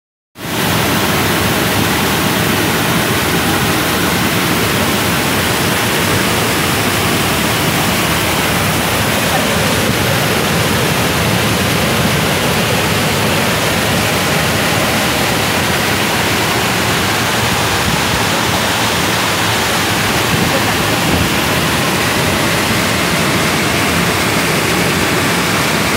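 Muddy floodwater pouring over a ledge in a broad cascade: a loud, steady rush of falling water.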